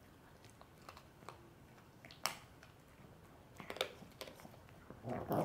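Miniature pinscher chewing a duck-neck bone treat: scattered sharp crunches and clicks of teeth on bone, one sharp crack about two seconds in and a louder cluster of chewing near the end.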